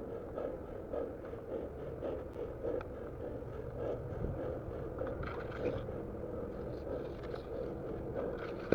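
Someone walking steeply uphill through long grass: footsteps swishing in the grass and heavy breathing, in a steady rhythm of about two a second.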